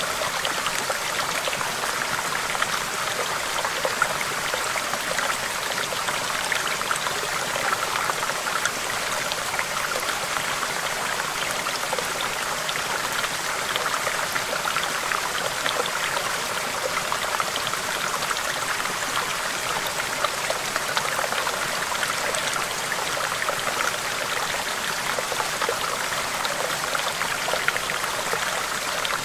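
Small stream babbling over rocks: a steady, even rush of flowing water with many small splashes and trickles throughout.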